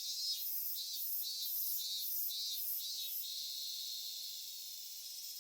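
Insects chirping, cricket-like: evenly spaced high chirps about twice a second for the first three seconds over a steady high-pitched insect hiss that carries on alone after that.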